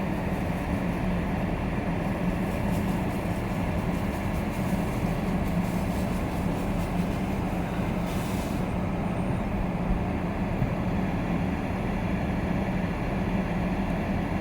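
Skid steer loader engine running steadily at an even pitch. A short hiss comes about eight seconds in.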